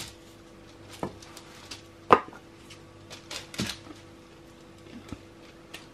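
Solid lotion bars being pushed out of a silicone mould and handled on a paper-covered worktop: a few scattered soft knocks and rustles, the sharpest about two seconds in.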